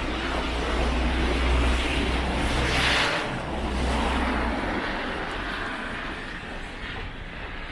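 Road traffic passing close by: a vehicle's engine with a steady low rumble that fades out about four and a half seconds in, and a swell of tyre noise on the wet road that peaks about three seconds in.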